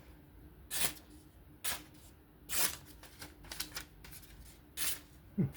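Short rasping strokes of a steel knife blade being worked, about one a second, five or six in all.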